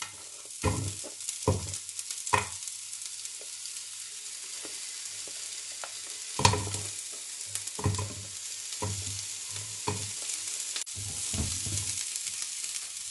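Onion wedges dropped a few at a time into a hot nonstick frying pan, sizzling steadily. Scattered knocks and clatters come as the pieces land and a silicone spatula moves them about.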